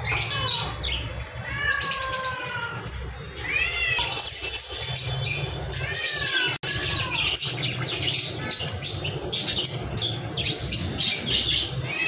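A cat meowing again and again, each meow falling in pitch, over high chirping and a steady low hum.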